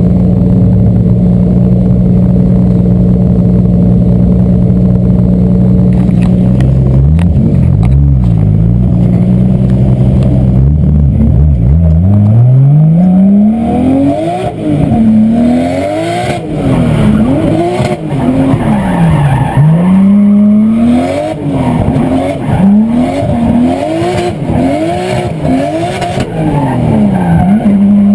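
Car engine recorded through a GoPro's internal microphone. It holds a steady note for the first several seconds, then from about twelve seconds in its pitch rises and falls again and again as the car accelerates, changes gear and slows.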